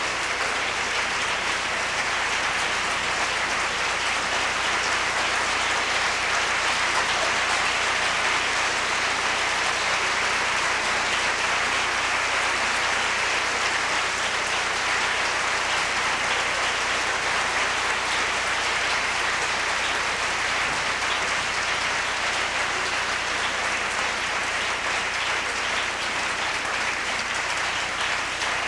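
Concert audience applauding: sustained, even clapping from a full hall, with no break.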